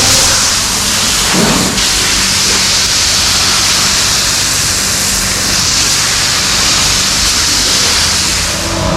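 Steady loud hiss over a low, even motor hum: the running noise of milking-shed machinery during milking. A brief low sound rises out of it about a second and a half in.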